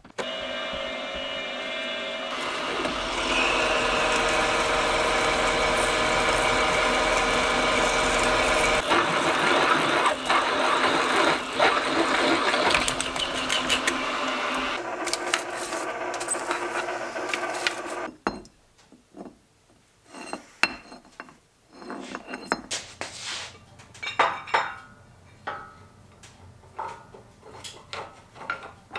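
A large twist drill boring through steel plate in a drilling machine: the motor and gearing run with steady tones under the scraping of the cut, for about eighteen seconds. Then it stops abruptly, and light metal clinks and knocks follow as a hydraulic cylinder's eye is handled against a steel bracket.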